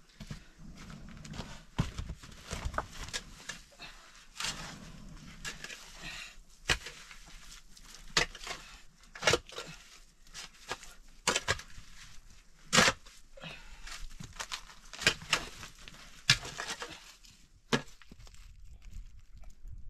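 A mattock chopping into rocky, earthy ground, with a sharp strike every second or so at an uneven pace as soil and stones break loose. The strikes stop about 18 seconds in.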